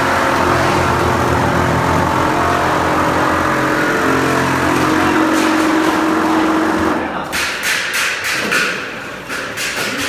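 Motors of a TUPO 8 automatic plastering machine running steadily as it climbs its mast spreading mortar on the wall, stopping about seven seconds in. A rapid run of sharp clicks or knocks follows for a couple of seconds.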